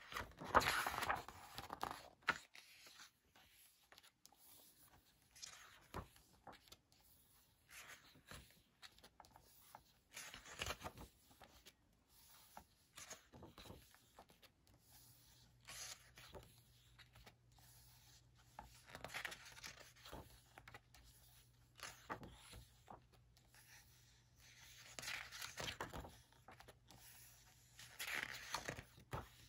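Pages of a hardcover picture book being turned by hand: soft paper swishes every several seconds, with small taps and rustles of fingers on the paper in between.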